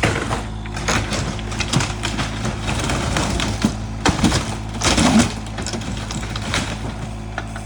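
Mini excavator's engine running steadily while it crushes and tears apart a wooden cabin, with repeated cracking, splintering and breaking of timber, loudest about five seconds in.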